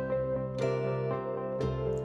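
Instrumental background music with plucked notes, a strong note struck about once a second over held low tones.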